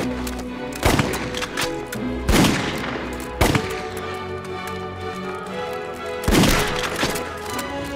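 Dramatic background music with held notes, with four sharp gunshots at irregular intervals over it: about a second in, twice around two and a half to three and a half seconds, and once more at about six and a half seconds.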